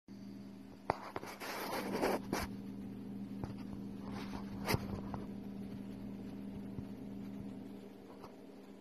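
Loose sand rustling and scraping in short spells as a small desert viper wriggles itself down into the sand, with a few sharp clicks over a steady low hum.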